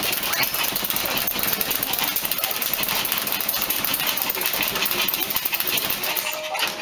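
A small dog's claws scratching and pawing rapidly at a wire bird cage, a fast, irregular clatter of clicks and scrapes that keeps going without a break.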